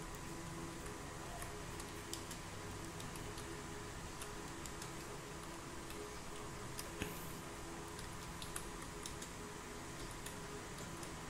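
Keys of a PS/2 computer keyboard clicking at an irregular pace as someone types, over a steady hum.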